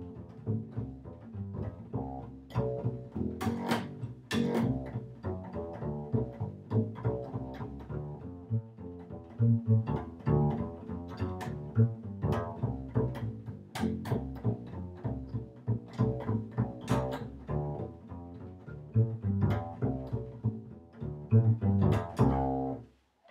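Solo bass played pizzicato in a continuous run of quick plucked notes, stopping abruptly near the end.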